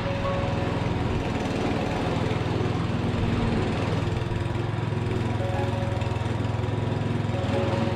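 A motor running steadily at one even speed, a continuous low drone.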